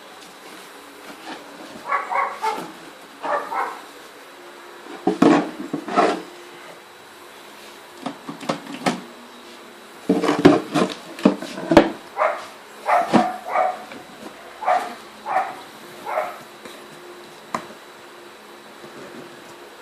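A dog barking in short, irregular bursts, with sharp knocks and clacks among them.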